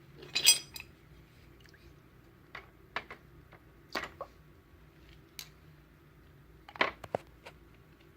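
Scattered clicks and knocks of objects being handled: a brief scraping burst about half a second in, single taps around three and four seconds, and a short cluster of knocks near seven seconds.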